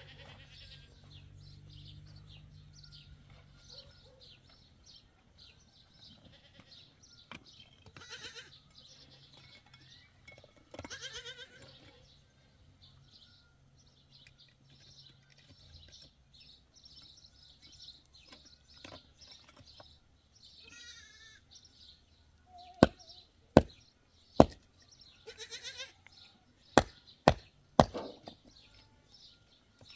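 Livestock bleating a few times, with faint bird chirps in the background. Near the end come six sharp, loud knocks, struck about half a second to a second apart.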